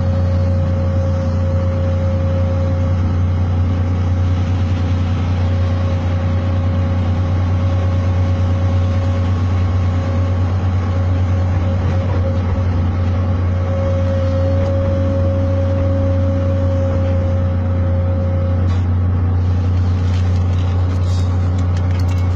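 Heavy equipment diesel engine running at a steady speed with a constant low drone and a thin steady whine over it; the whine drops out near the end.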